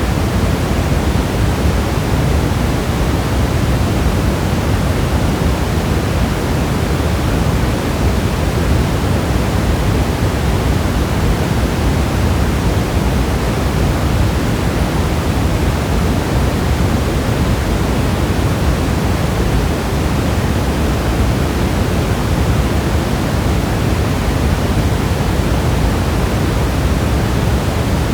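Steady rain falling, an even, unbroken hiss with a deep low rumble and no separate drops or thunder standing out.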